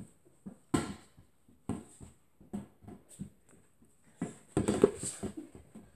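Irregular soft thuds and knocks of a large inflatable plastic ball being kicked and bouncing on carpet, about one a second, with a busier, louder cluster of knocks and scuffles about four and a half seconds in.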